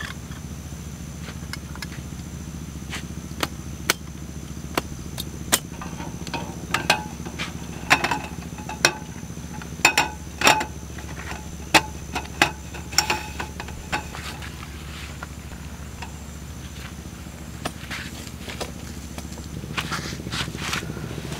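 Folding metal camp table being set up: scattered sharp clicks and clanks of the frame locking open and the slatted top being laid on, most of them in the middle stretch. A steady low hum runs underneath.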